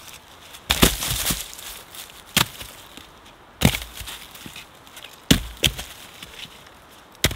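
Wood being chopped: about five sharp strikes at an uneven pace, a couple of them followed quickly by a second blow.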